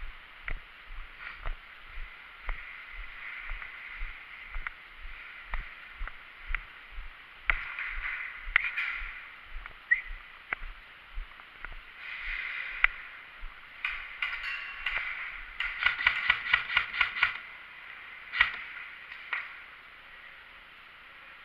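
Footsteps of a player walking, about two and a half steps a second, with clothing and gear rustling. About two-thirds in comes a quick run of sharp clicks, about eight a second, as an airsoft gun fires a burst.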